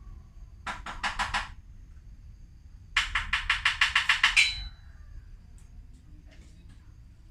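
A bird's rapid chattering call. A short run of quick notes comes about a second in, then a longer, louder run of about a dozen notes about three seconds in.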